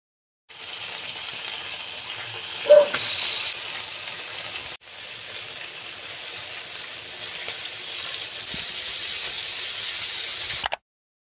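Floured chicken pieces frying in hot oil in a pan, a steady sizzling hiss that gets louder about three-quarters of the way in. A brief clink stands out a few seconds in.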